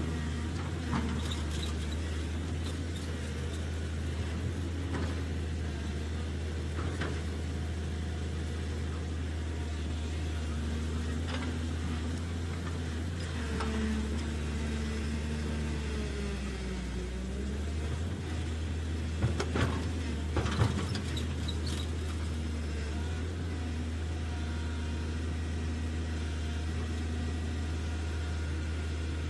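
Radio-controlled scale model Cat 320D L excavator working in sand: a steady low motor hum, with a whine that shifts in pitch as the arm and bucket move. A few short clatters come from the bucket and tracks, several together about twenty seconds in.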